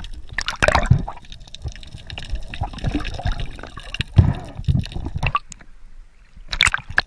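Water splashing and dripping in irregular bursts, with scattered knocks and thumps; the loudest bursts come a little under a second in, about four seconds in, and near the end.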